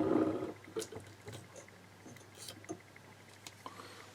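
A few faint, scattered clicks and taps of a Seagate 3.5-inch hard drive's metal casing and top cover being handled, just after the cover has come free of its adhesive seal.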